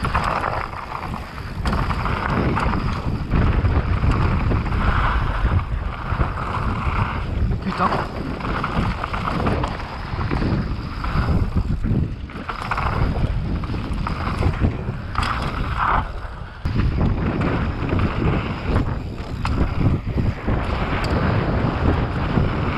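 Wind buffeting the microphone of a camera carried on a fast downhill mountain-bike run, over a heavy, uneven rumble from the bike on the trail.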